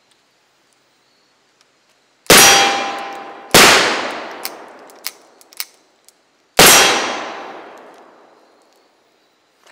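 Three shots from a .44-calibre black-powder Pietta replica Starr revolver fired in double action mode: two about a second apart, then a third some three seconds later. Each is a loud bang whose echo dies away over about two seconds, and a few short sharp clicks come between the second and third shots.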